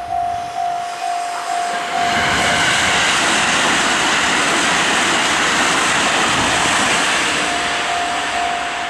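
Japanese level-crossing warning bell ringing at about two and a half strikes a second. About two seconds in it is drowned out by a train passing over the crossing, whose loud rumble and wheel noise lasts about five seconds. The bell is heard again near the end.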